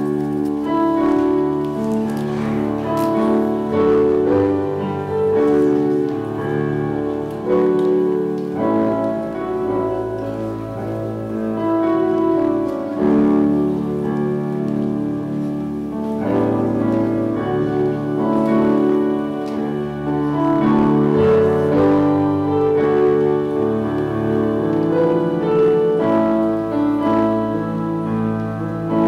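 Piano music that starts suddenly and plays on with slow, sustained chords.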